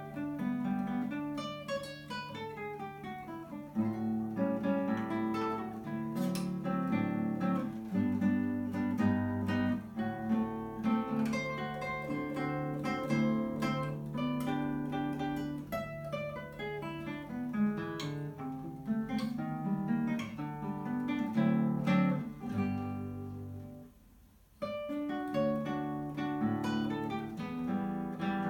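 Solo classical guitar played fingerstyle: a melody of plucked notes over a moving bass line. The playing breaks off briefly about three quarters of the way through, then carries on.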